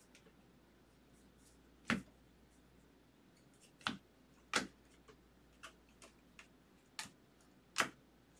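Baseball trading cards being flipped through one at a time in a hand-held stack, giving irregular sharp snaps and clicks. About five of them are louder, with softer ticks in between.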